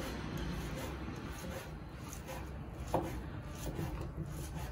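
Faint rubbing and handling of food and kitchen utensils, with one light knock about three seconds in.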